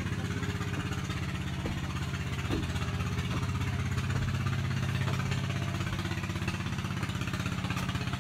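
A small engine idling steadily, a low, even note with a fast pulse.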